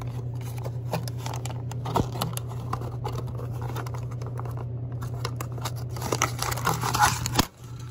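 Hands handling white plastic vending-machine parts, giving scattered clicks, taps and light scraping over a steady low hum. The hum and handling cut out briefly near the end.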